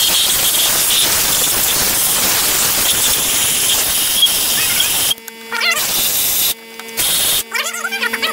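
Pressurized spray hissing hard from a long nozzle wand aimed down into the engine bay of a Ford 5.4 V8 around the spark plugs, a step done before the plugs are broken loose. It runs steadily for about five seconds, cuts off, then comes back in two short bursts.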